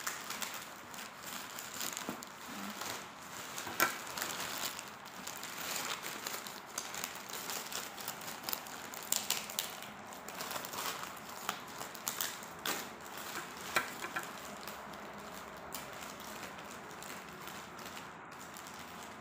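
Plastic courier bag crinkling and crackling as it is cut open with scissors and pulled apart by hand, with irregular sharp clicks and rustles.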